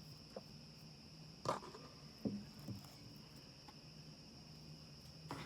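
A few soft knocks and rustles of items being handled in a cardboard box, spaced a second or less apart, over a faint steady high-pitched whine.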